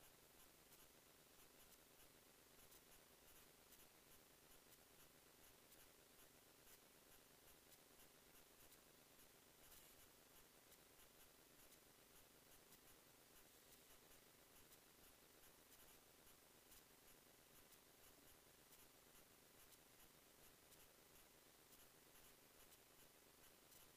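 Near silence: a faint steady hiss with faint scattered ticks.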